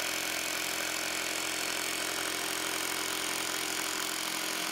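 Corded electric hammer running steadily, hammering a copper ground rod down into the soil through a ground-rod driver bit.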